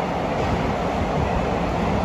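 Container freight train passing at speed, a steady noise of steel wheels running on the rails as the wagons go by.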